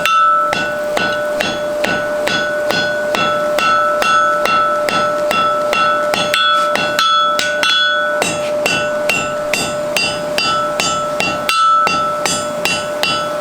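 Hand hammer striking a white-hot mild steel collar on a round bar against an anvil in a fast, even rhythm of about four blows a second, each with a short bright ring: forge-welding the collar onto the bar at welding heat. A steady hum runs underneath.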